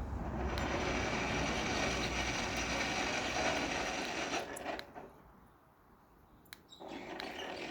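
Sectional garage door opener running as the door travels, stopping a little under five seconds in, then starting again about two seconds later.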